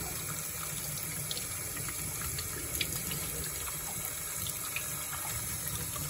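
Kitchen faucet running steadily into a stainless steel sink, the stream splashing over a steam boiler pigtail siphon being rinsed under it.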